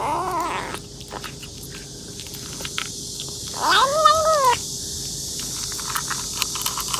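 Kitten meowing while it eats: a short meow at the start and a longer, louder one about three and a half seconds in, each rising then falling in pitch, with light clicking between them.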